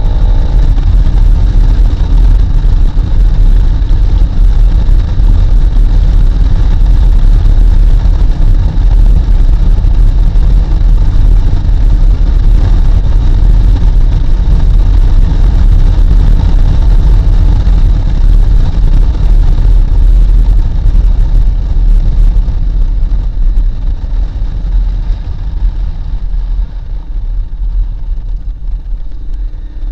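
Wind rushing and buffeting on the microphone of a Honda CRF250L at road speed, with the bike's single-cylinder engine running underneath. The rush eases somewhat near the end as the bike slows into a sharp curve.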